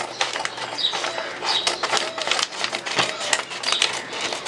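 Scissors cutting through the edge of a paper courier bag: a run of irregular crisp snips with the paper crinkling as it is cut and handled.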